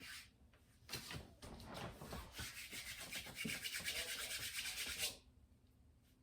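Fast, scratchy rubbing strokes, many a second, running for about four seconds and stopping suddenly, after a brief scratch at the start.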